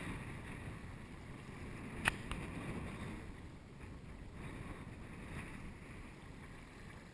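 Steady low noise of wind and sea around a small boat out on the open ocean, with one sharp click about two seconds in.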